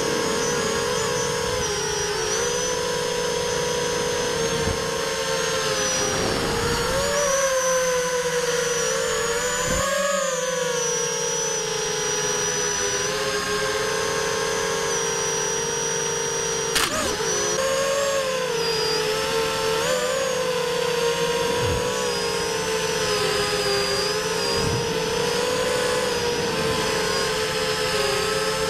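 FPV quadcopter's electric motors and propellers whining, heard from its onboard camera, the pitch rising and falling with the throttle. A single sharp click comes a little past halfway.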